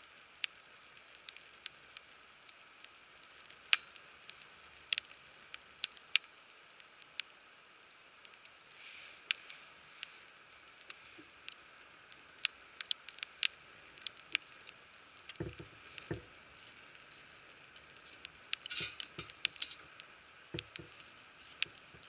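Wood campfire crackling, with sharp irregular pops over a faint steady hiss, and a few dull knocks in the second half.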